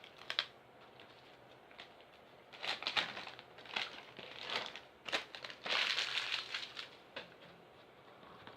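Packing material in an opened parcel being pulled out and handled, crinkling and crumpling in a run of irregular bursts from about two and a half seconds in until about seven seconds in, after a couple of short clicks at the start.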